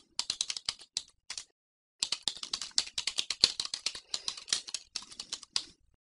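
Fast typing on a computer keyboard: a short run of keystrokes, a brief pause about a second and a half in, then a longer, steady run of keystrokes that stops just before the end.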